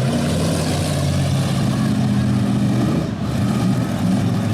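Stock car engines running and revving, their pitch rising and falling as the cars manoeuvre in a demolition derby.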